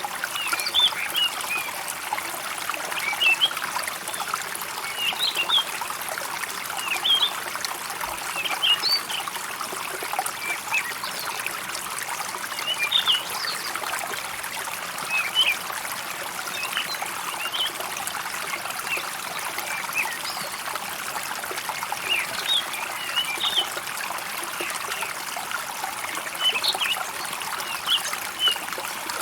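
Water trickling steadily in a stream, with birds chirping briefly every second or two over it.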